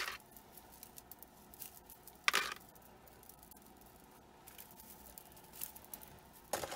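Faint handling noises of jewelry being picked up and set out: small ticks and taps, with a short rustle about two seconds in and a few more near the end.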